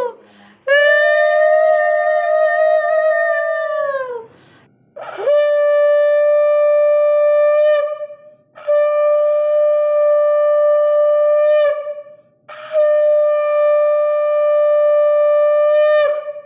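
Conch shell (shankha) blown in four long, steady blasts of about three seconds each, with short breaks between them; the first blast slides down in pitch as it ends. The conch is sounded as part of the puja worship.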